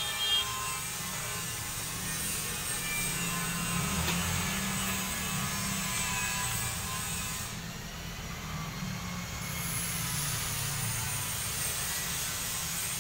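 Steady mechanical whirring hum with a low rumble, with a short knock a fraction of a second in.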